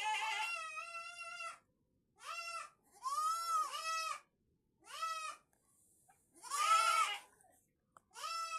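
Goats bleating over and over, about six calls, each half a second to a second and a half long and dropping in pitch at the end; in places two animals call over each other.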